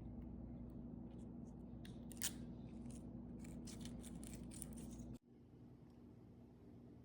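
Unboxing handling noise: a run of short crinkles and clicks from packaging being handled, over a steady low hum. The sound drops off abruptly about five seconds in.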